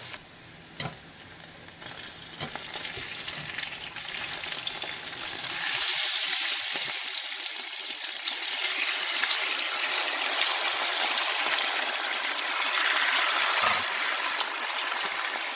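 Sliced onions frying in hot oil with whole spices in a pan, sizzling steadily as they cook toward golden brown. A few light knocks in the first seconds; the sizzle grows clearly louder about five and a half seconds in.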